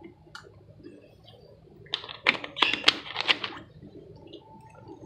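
Kitchen items being handled on a counter: a quick run of about five sharp clicks and light knocks about two seconds in, over faint background noise.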